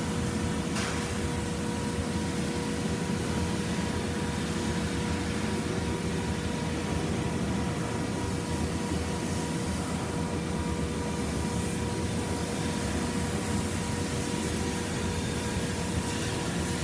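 Lucas Precision floor-type horizontal boring mill running under power: a steady low machine rumble with a steady whine over it, with no change in pace.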